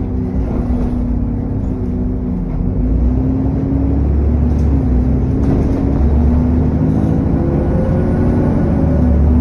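Vehicle engine running under way, with cooling-fan noise and a turbocharger whine. Its tones slowly rise in pitch from about halfway through, and a thin high whine comes in near the end.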